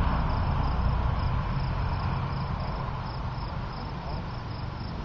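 Insects, crickets by their sound, chirping high and evenly about twice a second, over a low rumble that is strongest at first and eases off.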